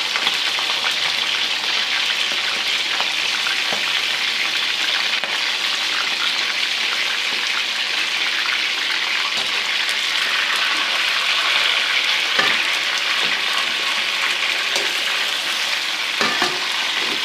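Chicken pieces sizzling steadily in hot ghee, freshly added to the pan for light frying. A couple of brief knocks come in the later part.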